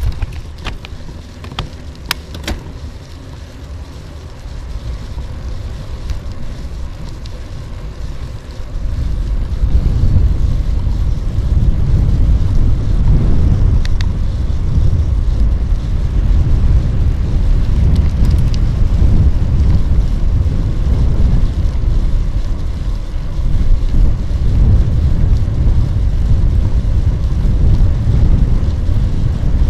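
Wind buffeting the microphone of a bicycle-mounted camera while riding, heard as a low rumbling noise that grows much louder about a third of the way in. There are a few sharp clicks near the start.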